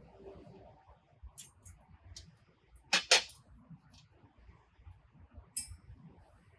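A few sharp clicks and clinks of parts being handled. The loudest is a quick double click about three seconds in, with another click late on.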